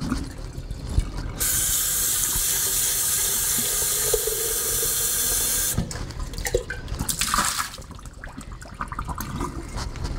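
Kitchen faucet running into a stainless steel thermal coffee carafe, rinsing out a salt-and-lemon cleaning mix; the tap comes on about a second and a half in and is shut off about six seconds in. Knocks and clanks of the metal carafe against the sink and water tipped out of it come before and after.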